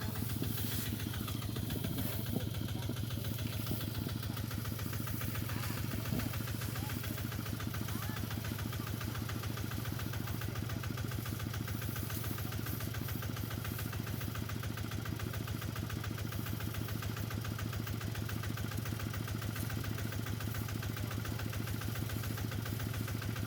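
Small engine running steadily at a constant speed, with a rapid even pulse. It is plausibly the motor of a farm machine at a rice harvest. A couple of brief knocks sound over it, one about two seconds in and one about six seconds in.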